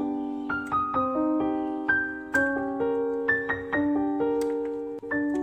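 Background piano music: a gentle melody with chords, notes struck and left to fade.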